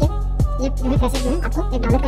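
Background music with a steady beat of deep bass hits that drop in pitch, under a bending melody.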